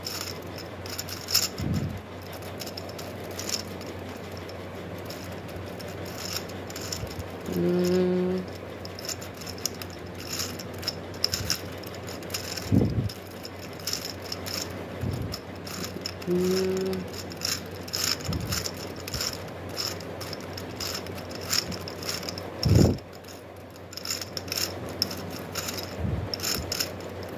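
Plastic gear cube being turned quickly by hand, its gears and pieces clicking and rattling. A few dull thumps and three short low hums come through.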